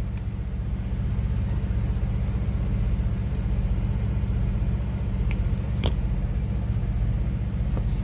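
Heavy truck engine idling steadily, a low even rumble, with a couple of light clicks a little past the middle.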